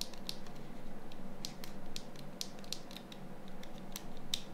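Small plastic and metal parts of a Nokia N93 being handled and fitted together: a string of light, irregular clicks and faint scrapes as the swivel camera-hinge barrel is set into the phone's upper housing.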